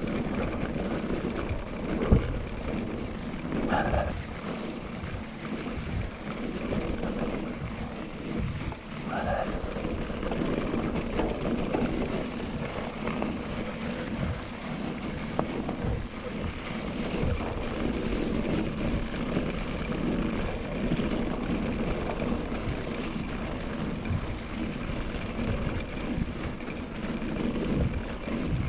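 KTM Ultra Fire 27.5-inch mountain bike riding fast over a leaf-covered forest track: steady tyre noise on the leaves and dirt, wind rushing over the microphone, and frequent small knocks and rattles from the bike over bumps, with one sharp knock about two seconds in.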